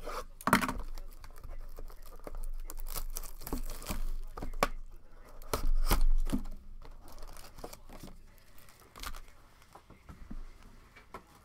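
Plastic wrapping on a box of trading-card packs being torn open and crinkled: rustling with several sharp rips, busiest in the first seven seconds and then thinning out.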